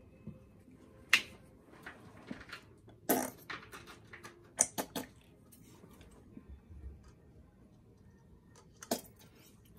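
A handful of sharp plastic clicks and knocks, with softer rustling between, as a tube of Liquitex Basics acrylic paint is handled and squeezed upside down into a plastic cup.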